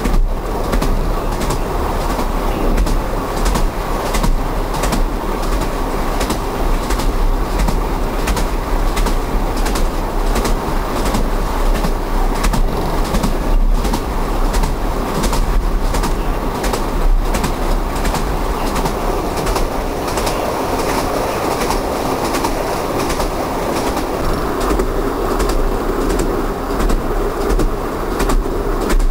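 Train running on jointed rail track: a steady rolling rumble broken by frequent sharp clicks as the wheels cross the rail joints.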